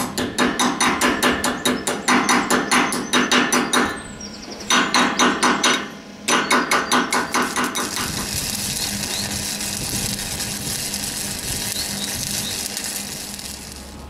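Rapid hammer blows on steel, about five a second, in runs broken by short pauses near 4 and 6 seconds. From about 8 seconds in, the steady crackling hiss of electric arc welding on the rusty steel frame takes over, fading near the end.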